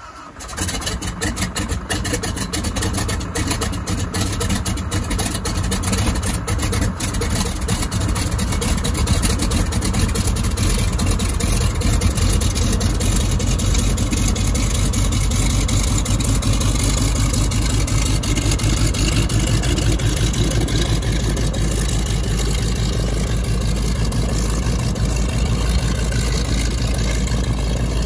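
The DHC-2 Beaver's Pratt & Whitney R-985 nine-cylinder radial engine starting. It catches suddenly about half a second in and fires unevenly for several seconds, then settles into a steady run as the floatplane taxis.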